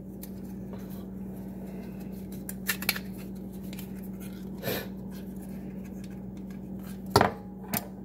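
Scattered metal clicks and clinks from a multi-tool being handled, with a sharper knock about seven seconds in, over a steady low hum.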